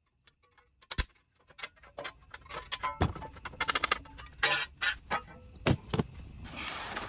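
Irregular metal clicks, clinks and knocks of a steel battery tray and its bracket being handled and repositioned in a bench vise, with a few louder knocks.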